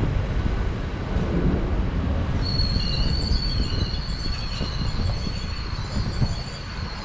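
A GWR Class 800-series intercity train running past and pulling away along the platform, its wheels and running gear rumbling steadily. About two and a half seconds in, a high, steady wheel squeal joins the rumble.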